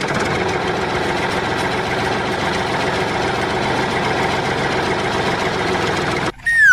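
Dump truck engine running steadily. It cuts off about six seconds in, and a high whistle starts to slide downward in pitch near the end.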